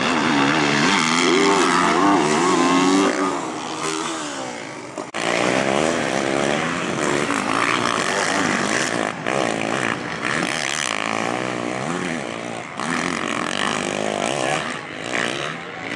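Motocross bike engines revving up and down as they race around the track, their pitch rising and falling constantly. The sound changes abruptly a couple of times.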